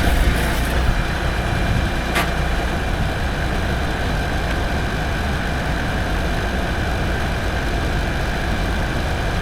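Tractor engine running steadily, with a single sharp click about two seconds in.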